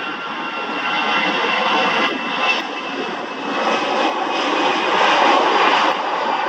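Jet engines of an Airbus A320-family airliner running at high power as it rolls along the runway: a steady jet roar with a faint high whine, growing louder about halfway through.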